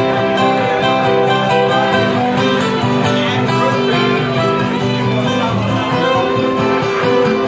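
A live band playing an instrumental passage without singing, with sustained notes and chords.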